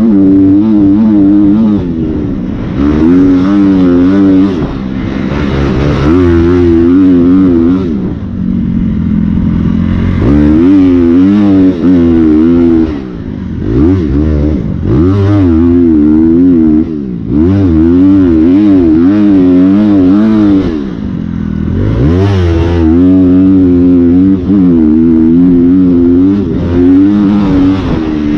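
Dirt bike engine under way, revving up and down again and again as the throttle is worked, with a few short lulls where the revs drop off.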